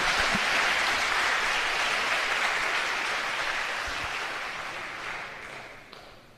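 Audience applauding a clean sword cut, steady at first, then fading away and dying out near the end.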